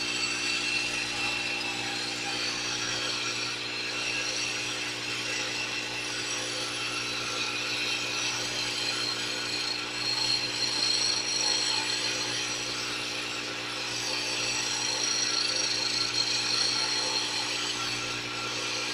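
Wood lathe running with a steady hum while a hand-held cutting tool shaves a spinning wooden pool cue shaft: a continuous scraping of wood being turned down.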